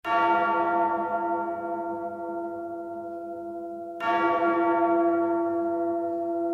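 A large bell tolling, struck twice about four seconds apart, each stroke ringing on and slowly fading.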